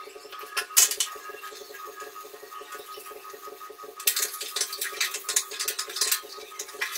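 Two or three sharp plastic clacks just under a second in, then from about four seconds a scrub brush scouring a ceramic toilet bowl with quick, rasping back-and-forth strokes.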